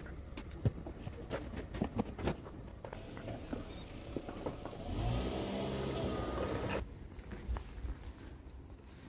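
Scattered light clicks and ticks, then a motor vehicle engine running steadily for about two seconds from about five seconds in, cutting off suddenly.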